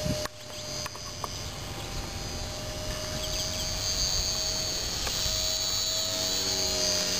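Electric motor and propeller of a Carl Goldberg Husky 400 radio-controlled park flyer in flight: a steady high whine that grows louder about halfway through. Under it is an uneven low rumble of wind on the microphone.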